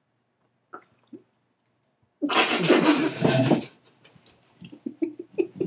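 A person's loud, rough vocal outburst about two seconds in, lasting about a second and a half, followed by faint sputtering sounds near the end.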